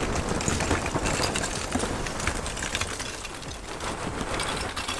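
Royal Oak lump charcoal pouring from its bag into the charcoal basket of a steel drum smoker: a continuous clatter of tumbling pieces.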